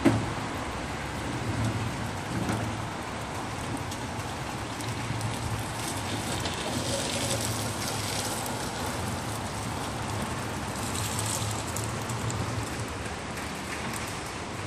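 Electric pallet truck running under a steady noisy hiss, with a low hum that rises and falls. There is a short knock right at the start.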